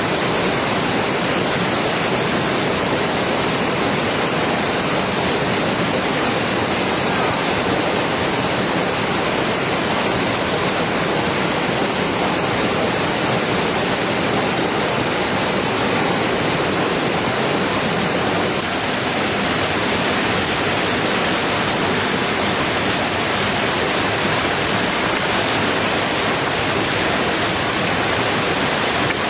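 Heavy rain falling as a loud, steady, even hiss of water.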